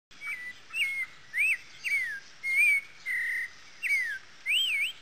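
A string of clear whistled notes, about two a second, each short and gliding up or down in pitch, one held flat and buzzy in the middle.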